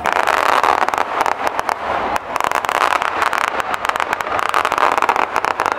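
Feu de joie rifle salute: blank rounds fired one after another down the ranks, a rapid running ripple of cracks that carries on without a break.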